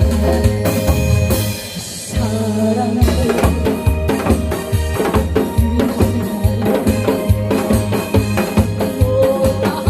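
Upbeat backing music with a drum kit and bass keeping a steady beat; the beat pauses briefly about two seconds in, then comes back.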